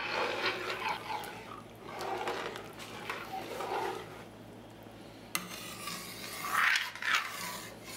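Metal spoon stirring thick pumpkin soup in an enamelled cast-iron pot, scraping against the pan in irregular strokes.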